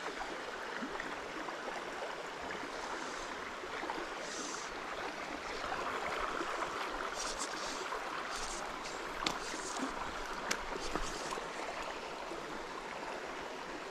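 Shallow creek water running steadily over rocks, with a few faint short clicks in the second half.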